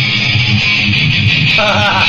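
Loud heavy rock music: distorted electric guitars over a pulsing bass line. Near the end a short wavering higher note cuts through.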